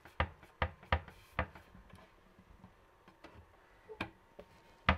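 Sharp clicks and knocks of a wooden galley cabinet door and its catch being pressed and tugged as someone works to open it: four quick knocks in the first second and a half, a few softer ones later, and the loudest knock just before the end.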